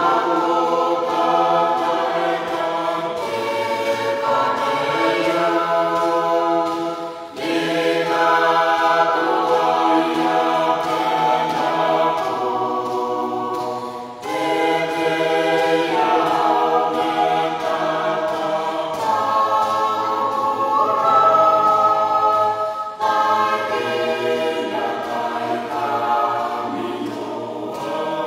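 A youth choir sings a Christian song in Gilbertese, with many voices together. It moves in long phrases, with short breaks about 7, 14 and 23 seconds in.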